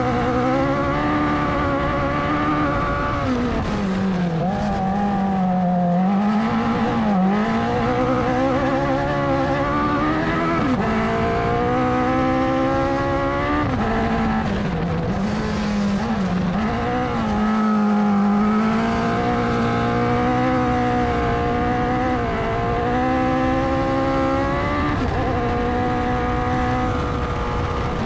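Racing buggy's engine heard from on board, pulling hard up a dirt road: the revs climb and drop sharply at upshifts about eleven and fourteen seconds in, and sag and swell again as it eases off through bends, over steady gravel and wind noise.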